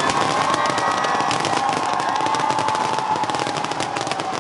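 Aerial fireworks going off overhead: dense, rapid crackling and popping from crackling shells bursting into glittering falling sparks. A steady tone slowly falling in pitch runs underneath for most of the time.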